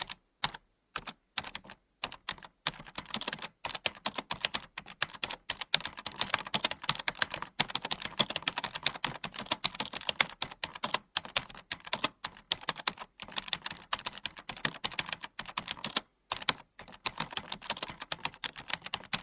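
Computer keyboard being typed on: fast, uneven runs of key clicks, with a few short pauses, the longest about 16 seconds in.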